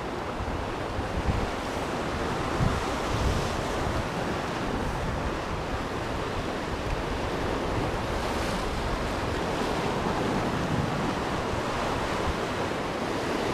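Sea waves washing and breaking against rocks, a steady surf noise, with wind buffeting the microphone.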